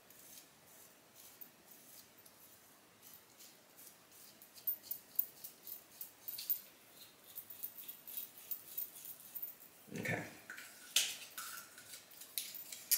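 Faint, irregular soft clicking from a charcoal face mask being worked onto the skin, getting denser from about four seconds in.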